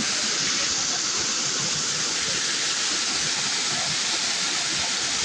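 Small waterfall pouring, a steady unbroken rush of falling water.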